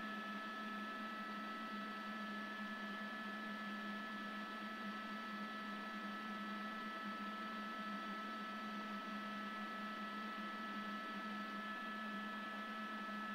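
Steady hum and high whine of a news helicopter, heard through its open microphone feed, with a constant hiss and no change throughout.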